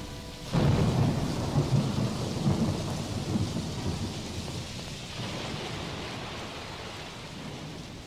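A thunderclap breaks in about half a second in and rumbles over steady rain. The rumble slowly dies away while the rain keeps falling.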